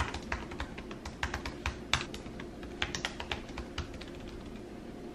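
A quick, irregular run of light clicks and taps, like typing, stopping a little under four seconds in.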